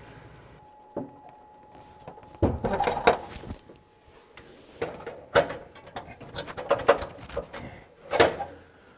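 Hand tools clicking, knocking and rattling against metal in a car's engine bay as a steering shaft is fitted, in scattered bursts with a few louder clunks.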